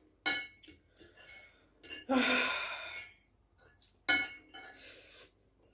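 Metal forks clinking and scraping on ceramic plates as noodles are eaten, in several short sharp clinks, the loudest about four seconds in. A breathy sound lasting about a second comes about two seconds in.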